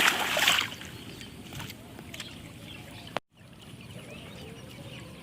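Water splashing as mud is washed off feet, stopping under a second in, then a low steady outdoor background.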